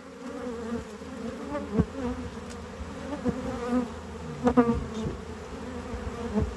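Swarm of honeybees buzzing around an opened hive, a steady hum with single bees gliding past close by. A few short knocks sound through it as the hive is worked.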